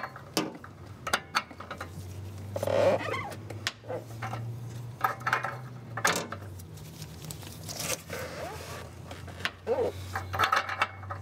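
Irregular metallic clinks, taps and scrapes of a wrench and a ratchet with a slotted oxygen-sensor socket being fitted and turned on a front oxygen sensor threaded into the exhaust pipe, giving it its final torque. A steady low hum runs underneath.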